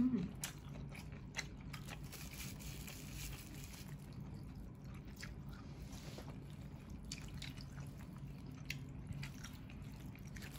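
Faint, scattered small clicks and taps of someone eating with disposable wooden chopsticks from plastic takeout boxes, with small mouth and chewing sounds, over a low steady hum.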